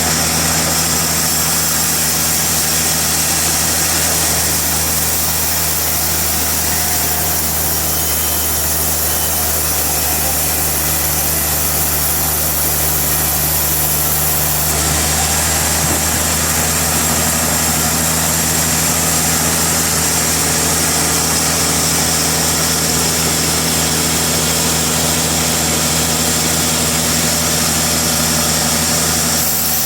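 Sawmill engine running steadily at a constant speed, with a slight change in its tone about halfway through.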